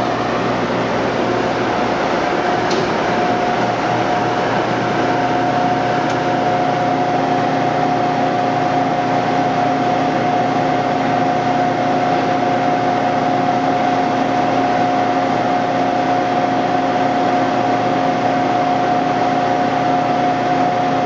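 Blanchard 26HD-48 vertical spindle rotary surface grinder running with its grinding spindle and rotary chuck table turning. It makes a steady hum with a constant whine over it, and two faint ticks come about three and six seconds in.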